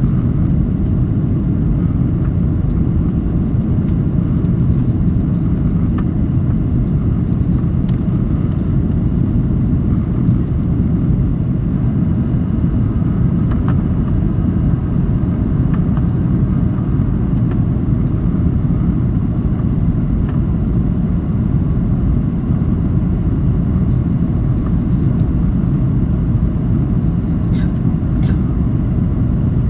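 Steady, loud low rumble of an aircraft, engines and airflow together, holding even throughout with no change in pitch or level.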